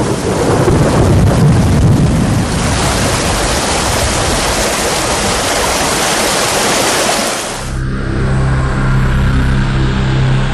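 Loud, steady rushing of torrential water. About eight seconds in, it gives way to music with sustained low tones.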